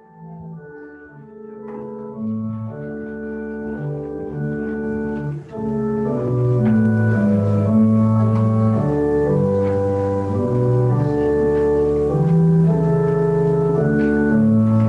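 Church organ playing a hymn in slow, sustained chords, swelling from soft to full over the first several seconds and then holding steady.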